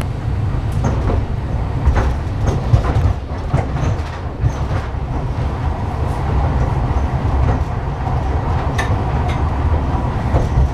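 Cable-pulled, rail-running airport people-mover car (MSP's Concourse C tram) heard from inside the cabin while travelling along its guideway: a steady low rumble with scattered clicks and clacks.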